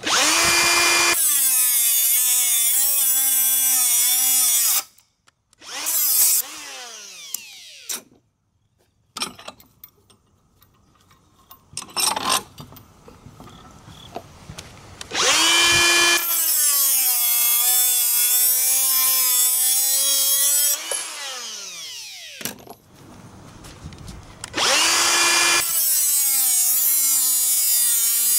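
Makita 18-volt cordless die grinder with a 3-inch metal cutting disc grinding through hardened steel chain and then a padlock shackle, in three loud runs of several seconds each: a high motor whine over the hiss of the disc, its pitch sagging as the disc bites into the metal. Between runs the motor is switched off and winds down in a falling whine, and there is a short knock about twelve seconds in.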